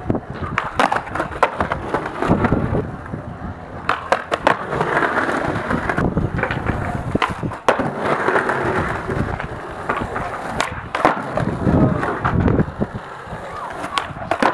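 Skateboard wheels rolling over concrete and paving slabs, with repeated sharp clacks of the board popping and landing.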